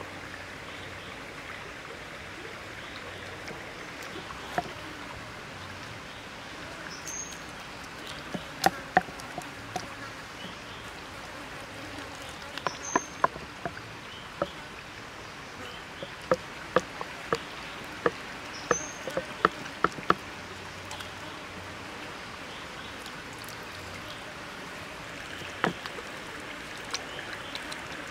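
Sharp knocks of a cleaver chopping a raw whole chicken on a wooden chopping board, coming in scattered clusters with the loudest strokes in the middle stretch. A stream runs steadily underneath.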